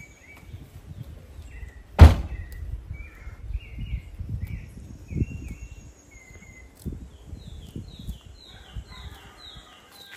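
A car door slams shut once about two seconds in, with softer knocks and rustling after it. Birds call throughout, with a run of quick falling chirps near the end.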